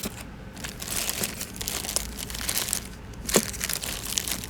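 Small plastic hardware bags crinkling and rustling as hands rummage through a parts kit, with one sharper click a little over three seconds in.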